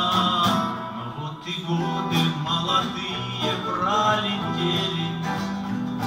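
Acoustic guitar and a small mandolin-type plucked instrument playing an instrumental break between verses of a folk-style song.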